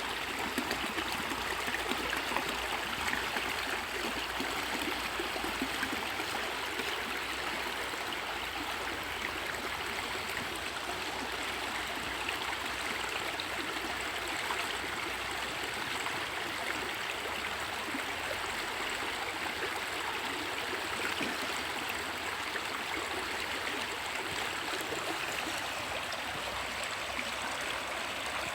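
River water flowing, a steady rushing of current.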